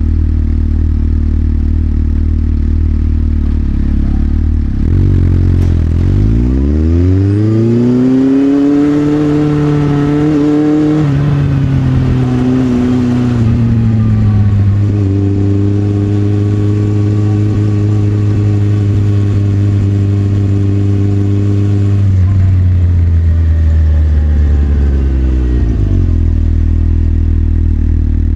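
Motorcycle engine idling, then pulling away with revs rising about six seconds in, dropping back briefly, holding a steady speed, and slowing back to idle near the end.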